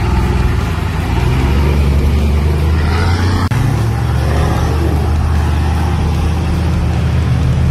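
Off-road four-wheel drive's engine running steadily as it drives down a bush track, a deep drone. The note drops abruptly about halfway through.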